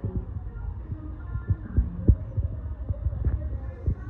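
Low rumble and irregular soft thumps of a handheld phone being moved and carried, over faint store background noise.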